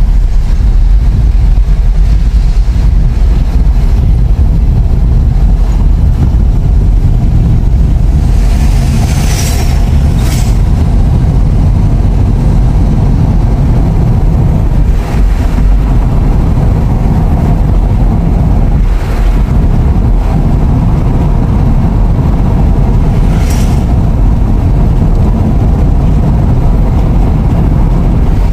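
Road noise inside a moving car: a loud, steady low rumble of engine, tyres and wind. Several brief rushes of passing traffic cut through it, the strongest about nine to ten seconds in as a large dump truck goes by close alongside.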